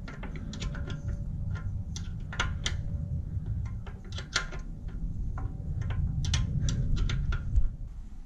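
Irregular clicks and light knocks of tools and fittings being handled while a pannier rack is fitted to a motorcycle, sometimes several in quick succession, over a low steady rumble.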